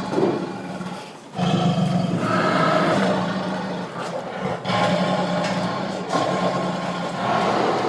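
Tiger growling and roaring in long rough calls, with a short break about a second in.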